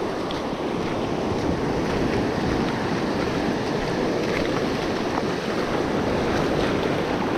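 Gulf surf washing steadily onto the beach, with wind buffeting the microphone.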